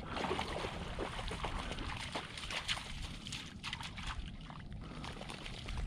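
Lake water lapping and splashing with a run of small crackles and trickles as a black Labrador retriever swims through the shallows and climbs out into the reeds.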